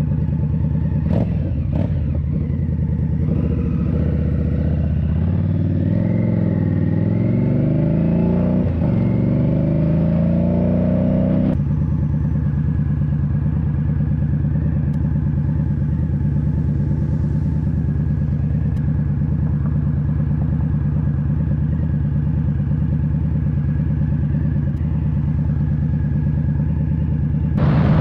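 Indian Scout Bobber's V-twin engine running: its pitch rises and falls for the first several seconds, then switches abruptly to a steady even note about eleven seconds in, with a louder surge near the end.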